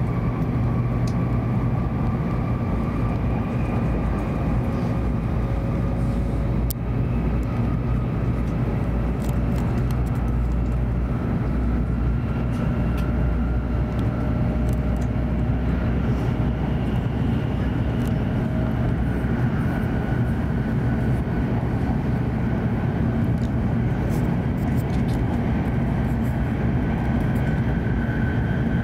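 Hokuriku Shinkansen train heard from inside the passenger cabin while running: a steady low rumble and rush of wheels and air. Over it a faint motor whine rises slowly in pitch as the train gathers speed, and there are a few faint clicks.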